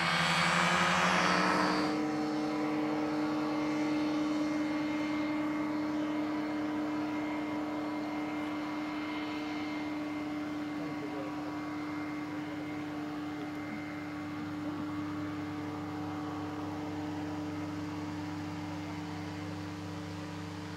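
A powered parachute's engine and propeller running steadily, a constant drone that slowly grows quieter. A louder sound with rising pitches cuts off abruptly about two seconds in.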